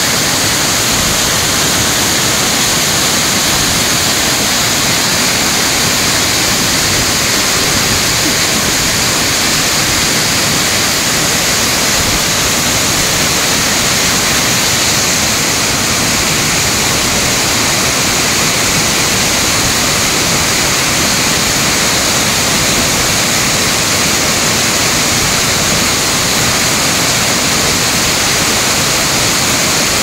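Waterfall rushing: a loud, steady hiss of falling water.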